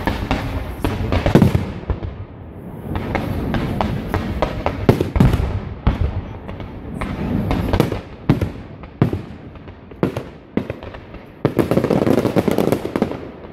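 Fireworks display: comets and shells launching and bursting in an irregular series of sharp bangs. A thick cluster of reports comes near the end.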